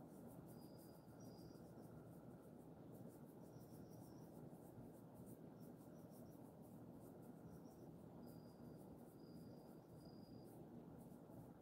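Near silence with faint insects chirping in short high trills about once a second over a low steady hum, and faint scratchy rustles of fingers working through a dog's fur.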